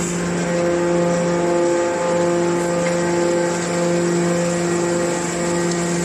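Hydraulic scrap baler's electric motor and pump unit running with a steady, even hum.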